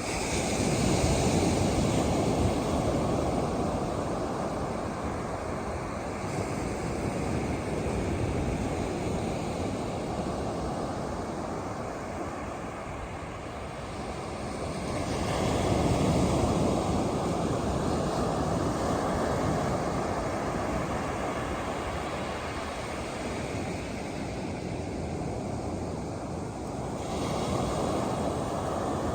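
Ocean surf: waves breaking and washing up the beach, the rush swelling loudest about a second in and again about halfway through, with a smaller surge near the end.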